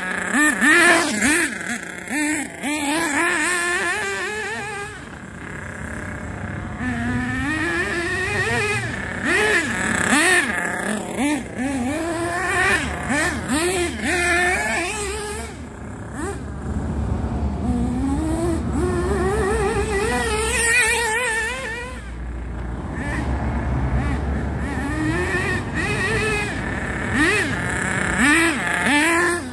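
Two-stroke .28 nitro glow engine of a Thunder Tiger EB4 S3 RC buggy, running on 16% nitro fuel. It revs up and down over and over as the buggy is driven along the path, with its pitch climbing on each long acceleration run and falling again when the throttle is let off.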